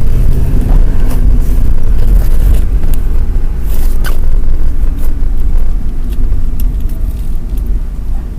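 A vehicle pulling away and driving, a steady, loud low rumble of engine and road noise, with a few faint clicks.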